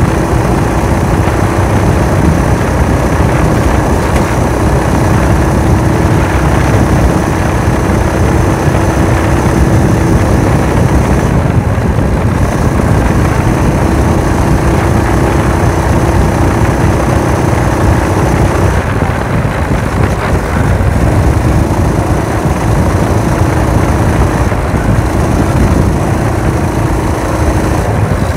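Motorized bicycle chopper's small engine running under way through its fiber-packed muffler, mixed with heavy wind rush on the microphone. A steady engine note drops out and comes back a few times.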